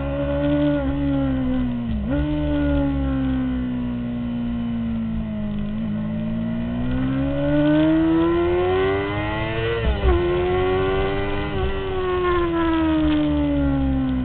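2003 Honda CBR600RR's inline-four engine heard from onboard, running under way. Its note dips sharply about two seconds in, sinks slowly, then climbs steadily to a peak near ten seconds before a sharp drop at a gear change, and eases down toward the end.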